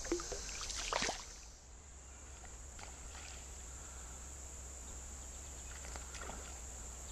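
Quiet creekside evening ambience: insects, likely crickets, trilling steadily in a high pitch, with a brief soft noise about a second in.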